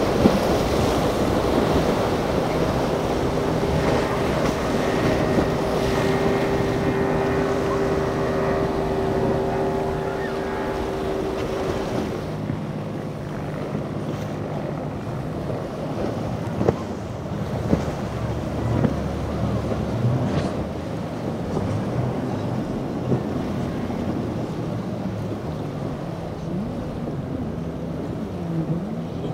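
Outboard-powered center-console boats running at speed through choppy water: a steady outboard engine drone over hull slap, spray and wind on the microphone. Over the first twelve seconds the engine tone drifts slightly lower. The sound then changes abruptly to a lower, rougher drone from a boat with twin Mercury 300 outboards, with a few sharp knocks of the hull on waves.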